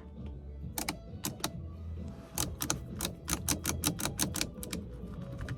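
Series of light mechanical clicks, a few at first and then several a second for about two seconds, from the Infiniti G35's headlight combination switch being worked through its positions.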